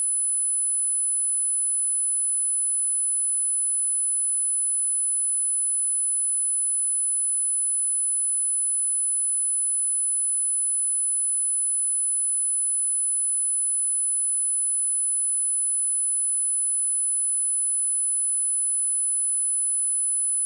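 A steady, high-pitched, pure sine-wave test tone at 10038 Hz, held unchanged at one pitch and level.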